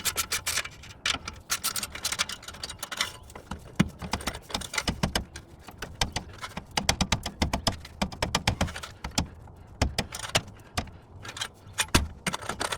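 Irregular metallic clinks and rattles of hand tools and steel exhaust pipe parts being handled.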